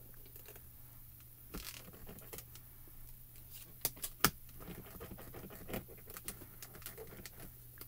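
Clear plastic hinged lid of a MISTI stamp-positioning tool being handled and lowered onto card stock, giving light clicks and one sharper clack about four seconds in. Then soft rubbing as hands press over the lid to stamp the image.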